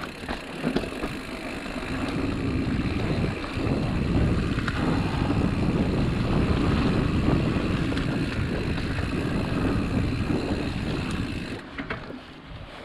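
Mountain bike riding over a dirt trail: a continuous rumble of tyres and wind on the microphone, with scattered rattles. It swells louder for several seconds, then drops off suddenly near the end.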